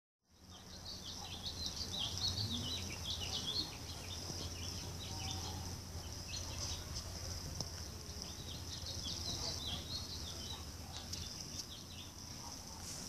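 Outdoor ambience: small birds chirping over and over above a steady high-pitched insect drone, with a low steady hum underneath.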